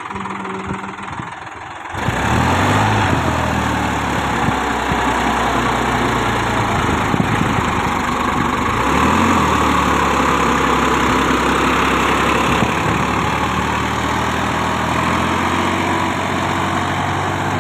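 Solis Yanmar 5015's three-cylinder diesel engine working hard as the 4x4 tractor pulls itself through deep mud. It gets louder about two seconds in as it is throttled up, and its note sags and recovers a couple of times under the load.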